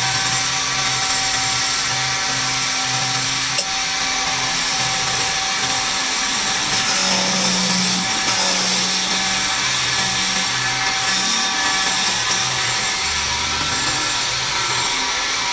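Wood lathe running while a hand-held turning chisel cuts along a long wooden spindle: a steady hissing scrape of shavings over the machine's drone. Background music with a low bass line plays underneath.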